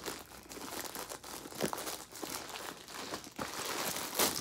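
Clear plastic packaging bag crinkling as it is handled and opened by hand: irregular crackles throughout, with a louder crackle near the end.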